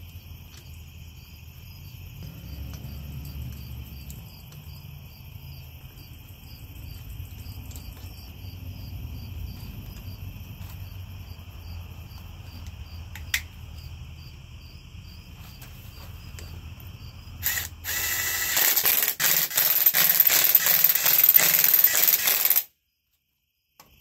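Crickets chirp steadily while bolts are started by hand on a tractor's front-hub cover, with a light metal click partway through. About 17 seconds in, a cordless power tool fitted with a socket runs loud and rattling for about five seconds, driving the cover bolts home, then cuts off suddenly.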